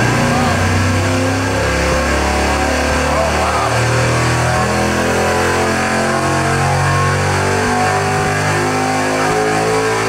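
598-cubic-inch big-block V8 with a solid roller cam running hard on an engine dyno, its pitch climbing steadily as it is pulled up through the rev range under load.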